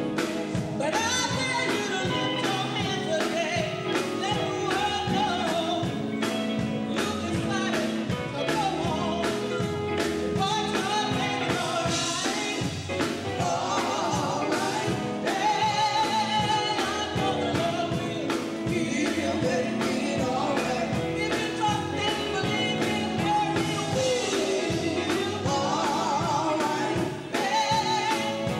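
Live gospel music: a group of women singing together over a band of electric guitars and a drum kit, with a steady drum beat.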